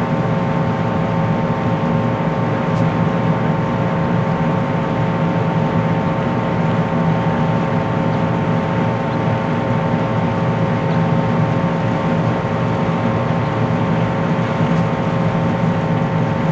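A steady mechanical drone with several constant tones, like a motor or generator running.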